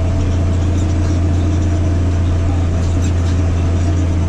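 Massey Ferguson 8210 tractor engine running steadily under load while pulling a disc harrow through a mustard cover crop, an even, low drone.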